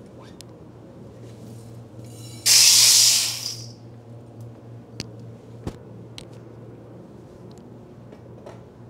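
Freshly roasted coffee beans tipped from a fluid-bed roaster's chamber into a stainless steel bowl, a loud rush of sound about a second long, some two and a half seconds in. Under it the roaster's air blower keeps up a steady low hum, and a few sharp metal clicks follow as the chamber is handled.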